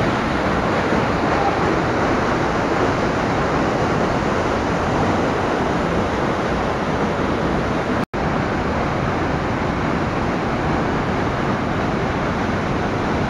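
Rushing whitewater of a mountain stream and waterfall cascading over rocks, a loud steady roar. It cuts out for a split second about eight seconds in.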